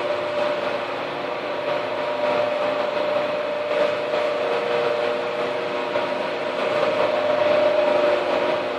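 Polytron washing machine's spin dryer running, a steady motor hum with a constant whine over a noisy rush.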